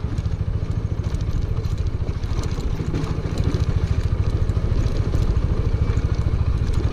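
TVS Apache motorcycle's single-cylinder engine running steadily as it climbs a rocky dirt track, with short knocks and clatter from the bike going over loose stones. The engine gets a little louder about three seconds in.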